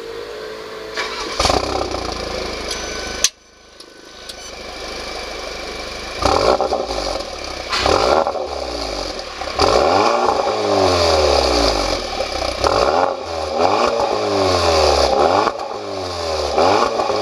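Audi TT (8S) with a Remus aftermarket exhaust, its engine revving up and falling back again and again, with a deep low rumble from the exhaust. A steady engine sound is cut off abruptly about three seconds in before the revving begins.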